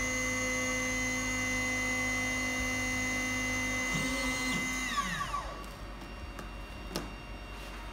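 Spindle motor of a small CNC milling machine whining steadily, then spinning down with a falling whine about five seconds in, followed by a single faint click near the end.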